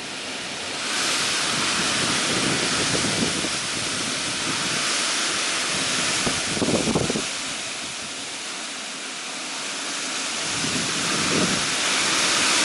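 Summer storm: a steady hiss of heavy rain, with gusts of wind rumbling on the microphone, the strongest about seven seconds in.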